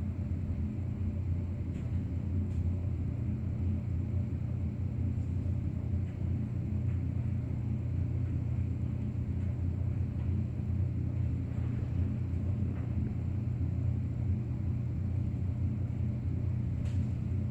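A steady low mechanical rumble with a constant hum in it, even in level throughout, with a few faint clicks.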